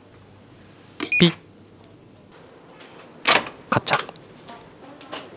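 An office door's electronic key-card lock gives a short beep with a click about a second in. Then, from about three seconds in, the metal lever handle is worked and the latch clicks three times, a "kacha".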